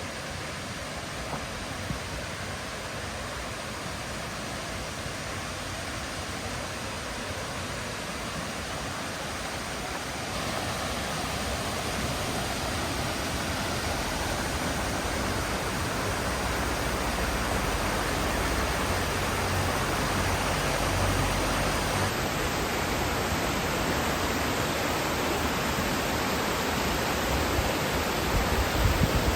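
Waterfall rushing steadily, growing gradually louder, with slight shifts in tone about ten and twenty-two seconds in.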